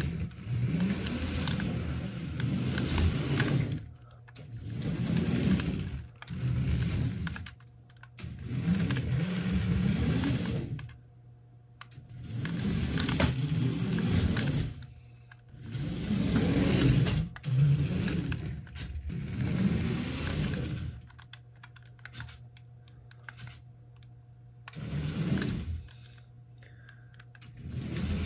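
Mould King building-block RC car driven by a second-generation high-speed L motor: whirring electric motor with clattering plastic gears and tyres on a wooden floor. It runs in repeated bursts of about two to four seconds with short pauses between, and is quieter for a few seconds in the last third.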